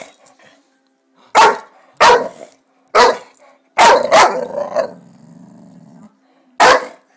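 Boxer puppy barking loudly and excitedly: about six short, sharp barks at uneven intervals, two of them in quick succession near the middle. After that pair comes a low growl lasting about a second.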